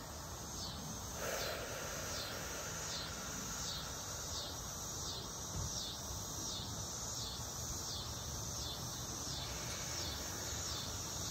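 Insects calling: a high, falling chirp repeating about twice a second, with a faint steady tone beneath.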